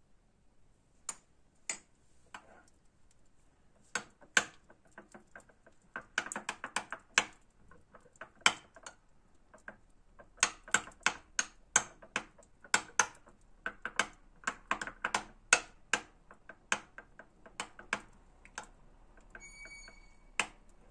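Metal spoon clicking against a glass bowl while stirring thick strained yogurt with garlic. Irregular sharp clinks, a few at first, then quick runs of them. A short high beep sounds near the end.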